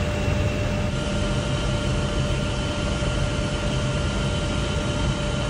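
Helicopter in flight: a steady drone of engine and rotor with a few steady whining tones, one of them coming in about a second in.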